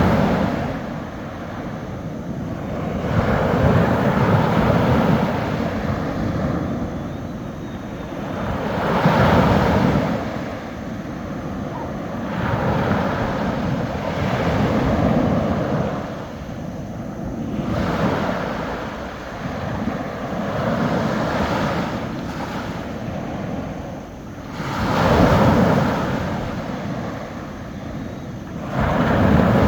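Gentle sea waves breaking on a beach: each wave rushes in and washes back, swelling and fading about every four seconds.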